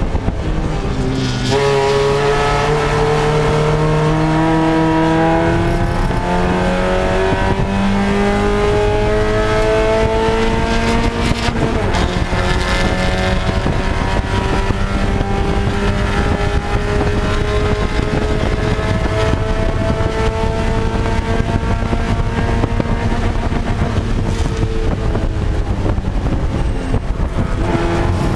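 Spec Miata race car's four-cylinder engine under hard acceleration, heard from inside the cockpit. Its pitch drops for a gear change about a second and a half in, climbs steadily, breaks for another change about twelve seconds in, then rises slowly and falls near the end as the car slows for a corner.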